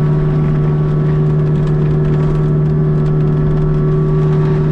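Kubota U55-4 mini excavator's diesel engine and its Prinoth forestry mulching head running at a steady, loud drone with a strong low hum while chewing up brush.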